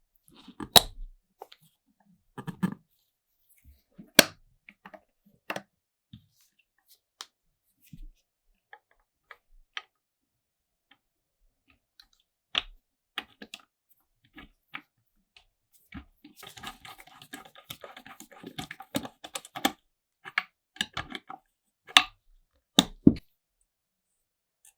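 Scattered sharp clicks and knocks of small hard parts being handled, with a stretch of rapid rattling clicks from about 16 to 20 seconds in.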